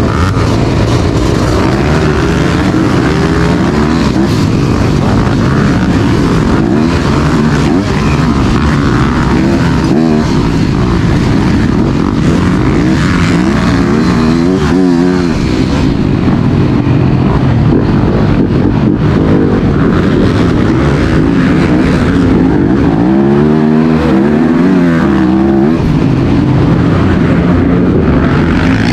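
Racing motorcycle engines running hard, their pitch rising and falling again and again as the bikes rev, accelerate and pass.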